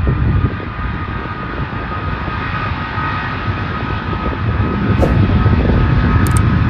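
Aircraft engines running: a steady high whine over a low rumble.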